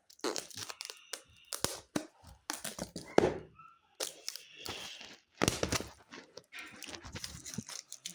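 Crinkling, crackling and tearing of wrapping being pulled off and handled, in a string of short, sharp rustles.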